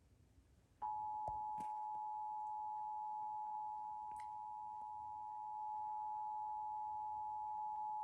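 Emergency Alert System two-tone attention signal: two steady tones sounded together, starting about a second in and holding unbroken. It is the alert tone that announces the Required Monthly Test message.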